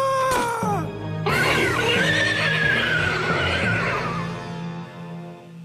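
Cartoon pony whinnying in two calls, a short one at the start and a longer, slowly falling one from about a second in, over background music.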